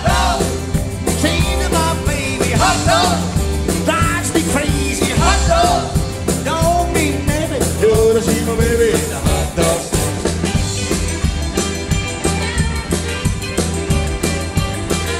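Live rock 'n' roll band playing: drums, bass, electric guitars and piano with a steady beat, and a male vocalist singing over the first nine seconds or so, after which the band plays on without vocals.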